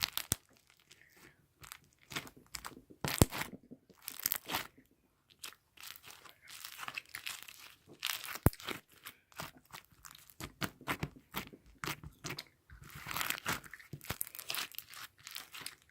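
Irregular crinkling, crunching and clicking of things being handled up close, with one sharp click about eight and a half seconds in.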